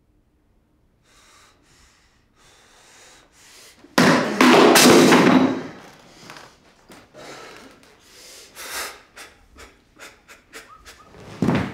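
A man breathing hard and panting in distress, with a loud breathy outburst about four seconds in, followed by scattered knocks and thumps.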